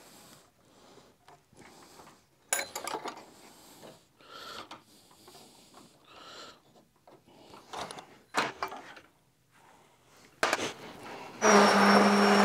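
Clicks and scrapes of a router's height being cranked and set at a router table, then, about eleven seconds in, the router motor is switched on and runs steadily with a fixed whine, loudest of all.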